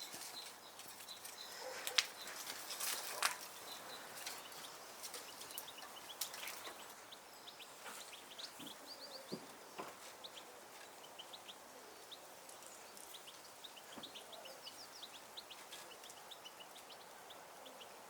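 Small songbirds calling: scattered quick high chirps and short rapid trills. Two sharp clicks about two and three seconds in stand out as the loudest sounds.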